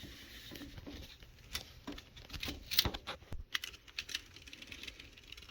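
Quiet, irregular clicks and rustles of plastic toilet flush-valve parts being handled while they are measured.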